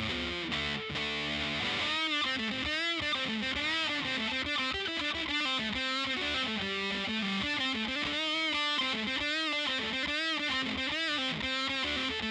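Electric guitar (Epiphone Les Paul with humbucker pickups) played through an Electro-Harmonix Big Muff Pi fuzz pedal into a Fender Twin Reverb amp with reverb: thick, sustaining fuzz tone. It starts with held notes, then about two seconds in moves to a lead line of long notes with string bends and wavering vibrato.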